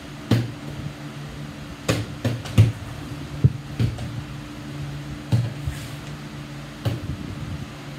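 Partly filled plastic water bottles thudding onto a ping-pong tabletop as they are flipped, about eight short knocks at uneven intervals, with a steady low hum underneath.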